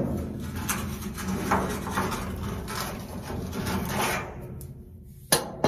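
Pipe wrench working a threaded fuel-gauge fitting loose on top of a steel heating oil tank: irregular scraping and grinding of metal threads and wrench jaws, fading out about four seconds in. A single sharp knock comes near the end.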